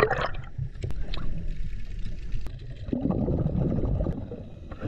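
The end of a splash as a person plunges into seawater, then the muffled, bubbling rumble of water heard through a submerged action-camera microphone, with a stretch of churning about three seconds in.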